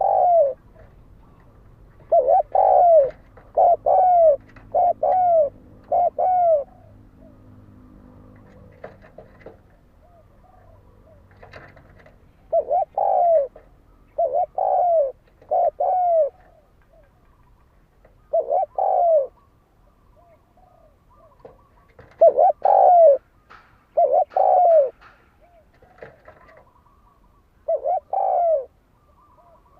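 Spotted dove cooing: phrases of short, arched coo notes, two to five at a time, repeated with pauses of a few seconds. This is the male's challenge call, used to provoke rival and lure doves.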